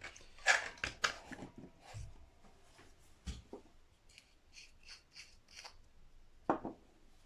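Small handling noises at a workbench: light clicks and rustles, then a quick run of about seven short scratchy strokes a little past the middle. These come from picking up and working small repair items such as a cocktail stick and glue.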